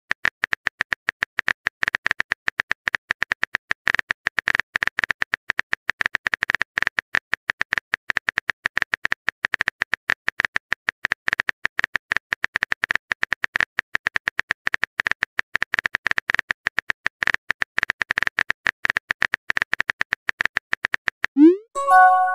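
Simulated phone-keyboard typing clicks: a fast, unbroken stream of short bright ticks as a message is typed out. About 21 seconds in they stop and the message-sent sound plays, a quick rising swoop followed by a few short chime notes.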